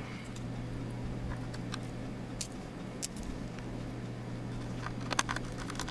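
A few faint clicks and taps as an M.2-to-SATA adapter card is pressed and seated into a laptop's M.2 slot, over a steady low hum.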